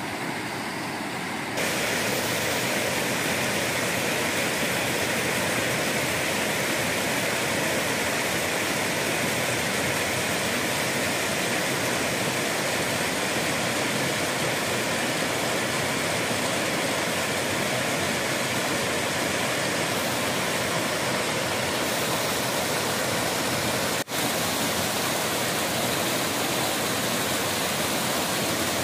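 Water rushing steadily down a small waterfall over a rock slab into a river pool.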